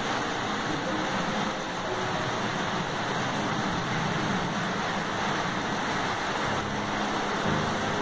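Heavy rain pouring down on corrugated roof sheets: a steady, dense hiss of drops. Low piano notes come in faintly near the end.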